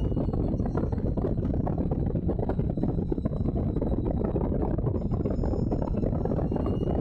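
Allard J2's V8 engine running hard at racing speed, heard from the open cockpit. Heavy wind rush over the microphone mixes in with it, at a steady level.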